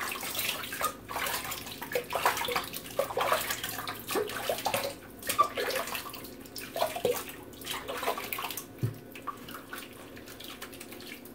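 Water splashing as shaving-soap lather is rinsed off a freshly shaved head, in quick irregular splashes that thin out near the end.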